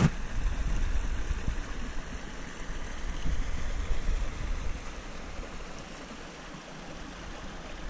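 Wind buffeting the microphone in gusts, a low rumble that swells and eases, over a steady rushing hiss.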